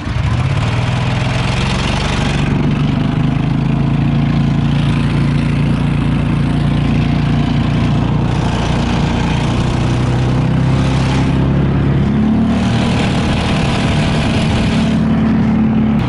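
Motor vehicle engine running under way, its pitch rising and falling with the throttle, with a hissing noise that swells and fades several times.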